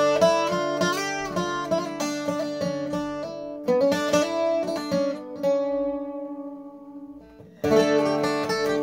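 Graham McDonald-made guitar bouzouki, freshly restrung, playing a picked tune on its paired strings. About two-thirds of the way through, a chord is left ringing and dies away before the picking starts again near the end.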